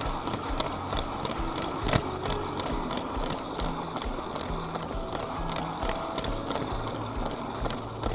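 LEGO train running on plastic LEGO track, its wheels clicking steadily over the rail joints several times a second, with the train's electric motor running underneath.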